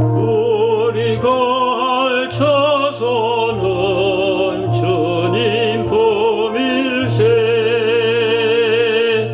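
A Korean hymn sung in an operatic style with heavy vibrato over sustained low accompaniment notes. This is the hymn's closing line, ending on a long held note.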